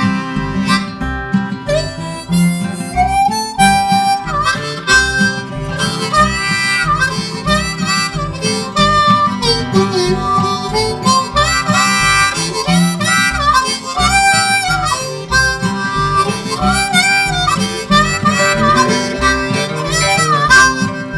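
Background music: a harmonica solo over strummed acoustic guitar with a steady beat, in an instrumental break of a folk-style song.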